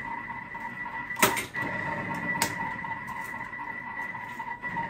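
Eggs cracked against the rim of a Thermomix bowl: two sharp knocks about a second apart, over a faint steady hum.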